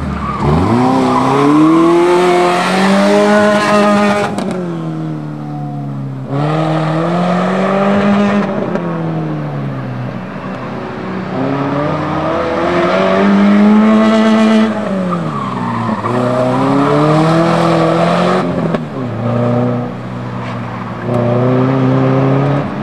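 A car's engine driven hard through an autocross course of cones, revving up and dropping back again and again as the driver accelerates, lifts and brakes. Tyres squeal in the tighter turns.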